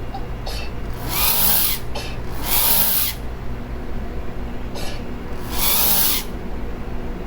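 A person sneezing three times. Each sneeze is a loud hissing burst of under a second, about a second in, near three seconds in and near six seconds in, each led by a short in-breath.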